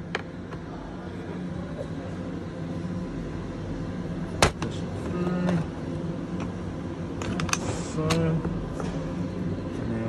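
Sharp clicks and knocks from a Renault Trafic rear door lock and its metal linkage rods as they are handled and worked into the door, the loudest click about four and a half seconds in. A steady low hum sits underneath, with two short low hums in the middle and near the end.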